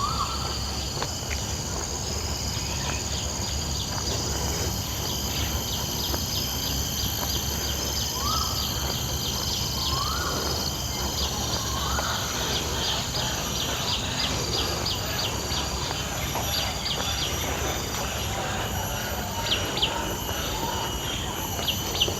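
Tropical park ambience: a steady high insect drone with bursts of rapid ticking, and a bird giving short rising whistled calls every couple of seconds, over a low rumble.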